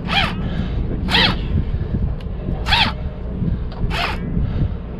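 Fishing rod and reel squeaking in short, rising-and-falling chirps about once a second as the angler pumps the rod and winds in a fish, over a steady low rumble.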